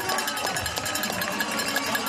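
Race spectators cheering with cowbells ringing, a steady din.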